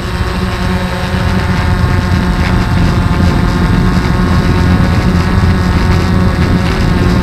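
DJI Phantom quadcopter's four brushless motors and propellers whirring steadily in flight, heard close up from a camera mounted on the drone, getting a little louder about two seconds in.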